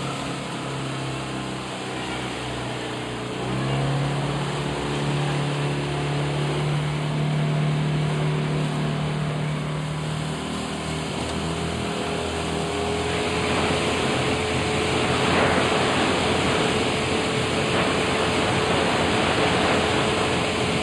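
Outboard motor of a coaching launch running steadily under a constant hiss of water and wind. Its note rises about three and a half seconds in, and a higher note takes over about ten seconds in.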